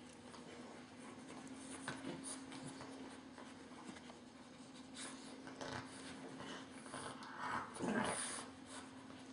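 Two-and-a-half-week-old French Bulldog puppies scrabbling and rustling against the bed sheet and their mother as they crawl and nuzzle, with a louder rustle about eight seconds in, over a faint steady hum.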